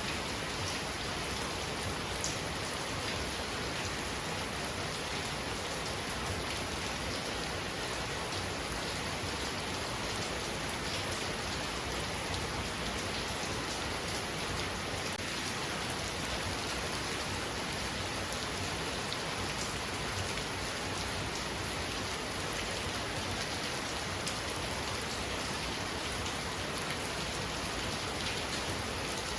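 Heavy rain falling steadily, a dense even hiss with faint drop ticks.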